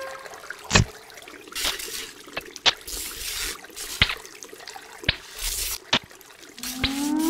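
Scattered sharp clicks and short hissing swishes, heard as dripping and trickling water. Near the end a rising, pitched electronic tone begins.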